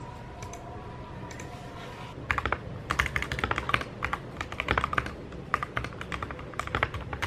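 Fingers typing quickly on a mechanical computer keyboard, a rapid run of key clicks and clacks. The typing is light at first and grows louder and busier from about two seconds in.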